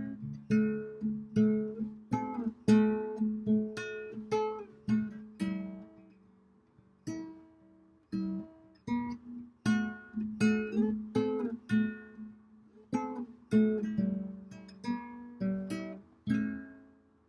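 Acoustic guitar strumming and picking chords in the song's instrumental outro, each chord ringing and decaying. It ends on a last chord that fades out.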